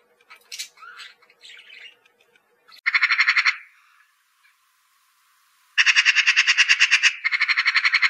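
Eurasian magpie chattering: rapid rattling bursts, a short one about three seconds in and two longer ones near the end. Faint budgerigar chirps come before them.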